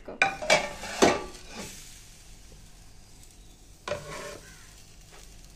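Cookware handled on a kitchen counter: three sharp knocks and clinks of a non-stick frying pan and aluminium lid within the first second, then a faint steady hiss, and another knock about four seconds in as a cooked bread pizza base is slid from a plate into the pan.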